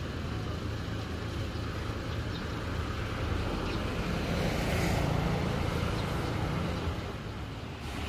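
Road traffic: steady engine hum of passing vehicles, growing louder toward the middle as one vehicle passes, then easing off.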